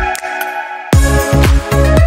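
Electronic dance background music with a heavy kick-drum beat and synth chords. The bass and drums drop out briefly and come back in about a second in.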